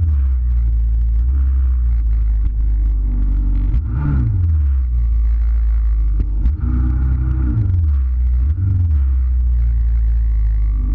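Jet ski engine running at low speed, its note dipping and picking up again a few times as the throttle is eased and reapplied.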